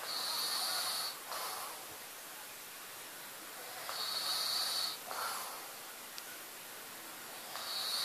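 A man snoring in his sleep: a long, noisy snore followed by a short, fainter breath, repeating about every four seconds, three times.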